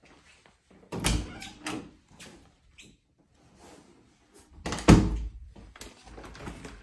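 Hinged interior closet door being opened and handled: a knock about a second in, a louder thud just before five seconds, and smaller clicks in between.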